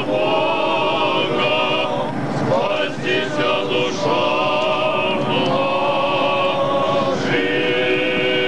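A choir singing an Orthodox liturgical chant in long held chords, moving to a new chord every second or two.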